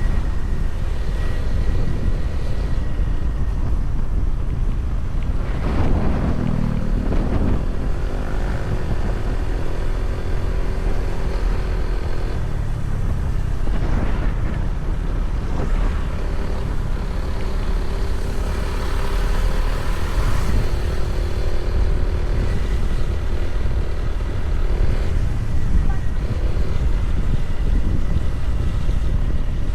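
Vehicle engine running steadily on the move, with wind on the microphone; the engine note rises and falls, with louder swells about six and fourteen seconds in.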